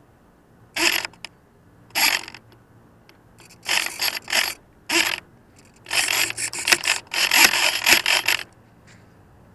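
Close, loud scraping and rubbing noise right at the microphone: a few short bursts, then a longer stretch of about two and a half seconds near the end.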